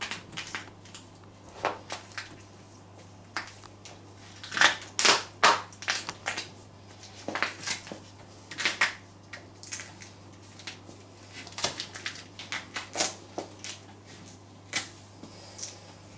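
Stiletto heels crushing carrot pieces and mashed fruit on a tile floor: irregular crunches and crackles with heel taps, in clusters that are loudest about five seconds in and again near nine seconds.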